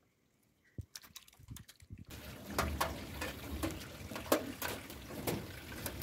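Chicken kebabs on metal skewers over a charcoal grill, sizzling and crackling with scattered sharp pops, starting abruptly about two seconds in. Before that, a few light clicks and taps.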